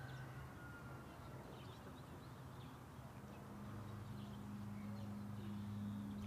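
Faint outdoor ambience: scattered bird chirps over a low, steady hum that shifts to a different pitch about halfway through.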